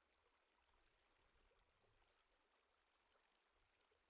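Very faint running water of a shallow rocky stream, barely above silence.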